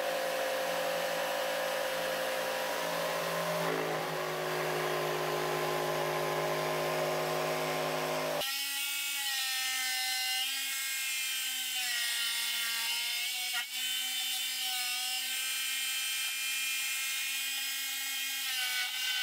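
Makita router running upside down in a router table with a straight bit, cutting through a plywood board as it is pushed across: a steady motor whine with a hiss of cutting. About eight seconds in the sound changes abruptly, and after that the whine wavers and dips a little in pitch as the bit takes the wood.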